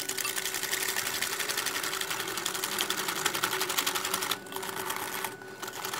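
Hand wire whisk beating egg, sugar and oil in a glass bowl, its tines clicking rapidly and evenly against the glass. The beating stops a little past four seconds in and starts again briefly near the end.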